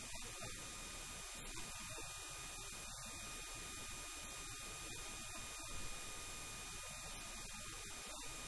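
Steady electrical hum and hiss, with a few thin constant tones running through it.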